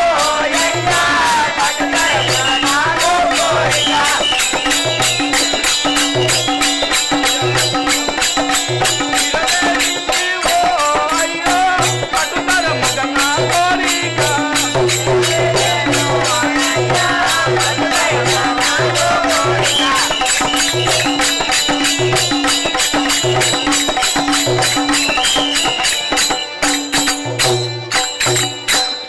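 Folk music for a Telugu stage play: a drum pattern under a fast, steady beat of sharp jingling percussion, with a wavering melody over it. The music breaks off near the end.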